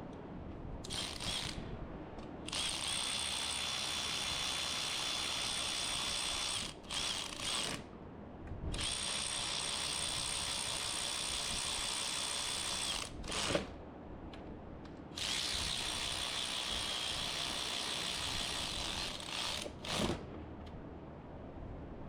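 Handheld power driver running screws into a steering column, in several long runs of a few seconds each with a steady high whine and short pauses between, and a couple of brief knocks.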